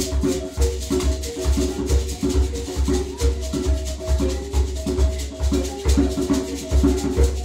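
Shona mbira music: two mbira in gourd resonators play short, interlocking, repeating notes over a steady rattle of hosho gourd shakers and low hand-drum beats.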